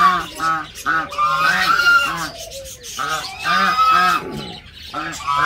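Domestic geese honking in a rapid series of short calls, several a second, with two brief pauses. They are broody geese just shut off their spoiled eggs, calling in agitation.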